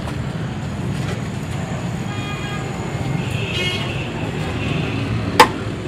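Busy street traffic rumbling steadily, with a vehicle horn sounding for a couple of seconds from about two seconds in. A single sharp knock comes near the end.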